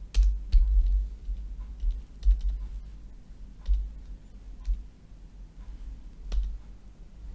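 Typing on a computer keyboard: irregular keystrokes with short pauses between them, the harder ones carrying a dull low thump.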